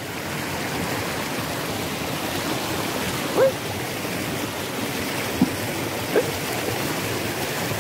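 River water rushing over rocks and small rapids: a steady, even rush of water.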